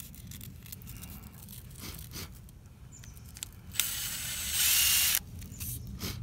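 Impact driver spinning a corroded stainless steel brake caliper slide pin inside a fold of 180-grit sandpaper: a short hissing scrape of about a second and a half, starting about four seconds in and louder in its second half, as the corrosion is sanded off. Before it, a few light clicks and paper rustles.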